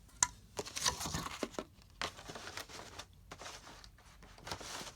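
A cardboard model box and its packing being handled and closed up: irregular crinkling rustles with light clicks and knocks.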